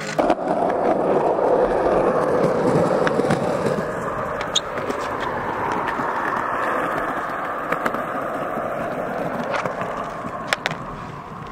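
Small hard wheels rolling over asphalt, a steady gritty rumble, with a few sharp clicks over it.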